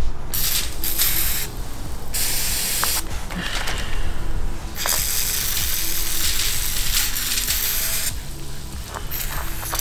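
Aerosol can of heavy-duty oven cleaner spraying onto a hot diesel fuel injector in about five hissing bursts, short spurts at first, then one long spray of about three seconds.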